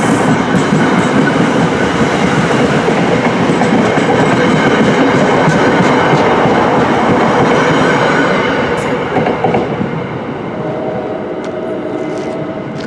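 New Jersey Transit commuter train rolling past on the rails with wheel clatter, loud for about eight seconds and then dying away.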